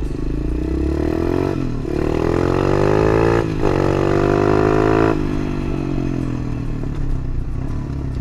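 Small single-cylinder pit bike engine accelerating hard through the gears: the revs climb, drop briefly at two upshifts, climb again, then fall away as the throttle is rolled off about five seconds in.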